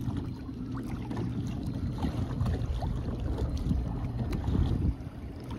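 Wind buffeting the microphone in a steady low rumble, over small waves lapping against a kayak hull.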